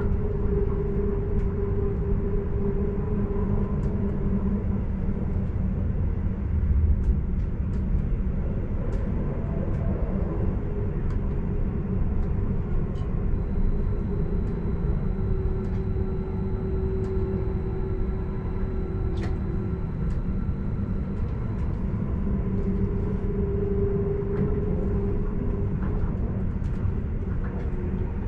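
Stadler RABe 515 "Mutz" double-deck electric train running along the line: a steady rumble of wheels on rails, with an electric drive hum that swells and fades and a few light clicks.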